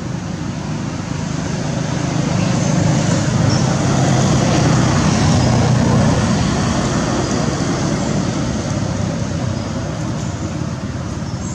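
A motorbike passing on the road, its engine and tyre noise swelling to a peak about five seconds in and then fading away.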